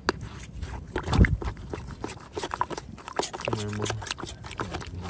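Water and wet mud in a mangrove mud crab burrow giving irregular clicks and small splashes as a crab stirs in the hole. There is a dull thump about a second in, and a short low hum from a person a little past halfway.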